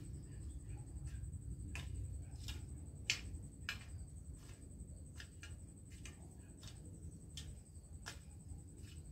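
A long-handled garden tool working dry soil: irregular sharp clicks and knocks, one or two a second, as it scrapes and strikes the ground.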